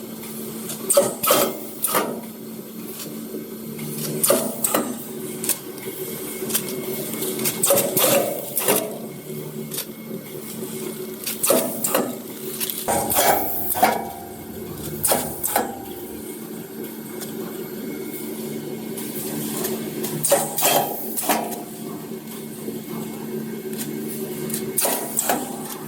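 Bag-in-bag packing machine running: a steady motor hum with repeated clicks and knocks from its moving parts, coming in clusters every few seconds.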